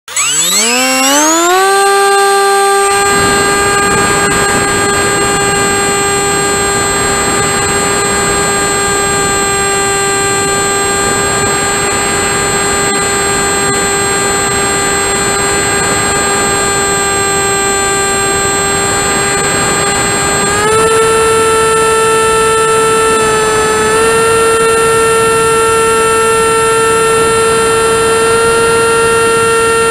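Model airplane's motor and propeller recorded from on board. It spins up with a rising whine over the first two seconds, holds a steady high whine, then steps up a little in pitch about twenty seconds in.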